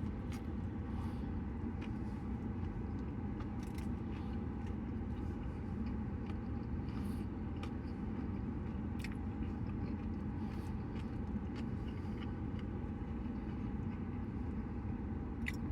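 Steady low rumble of a car's interior with the engine running, with a few faint short clicks and mouth sounds from eating scattered through it.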